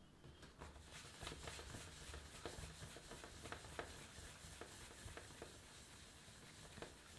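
Hands rolling a piece of bread dough into a ball against a smooth work surface: faint, steady rubbing with many small, irregular taps.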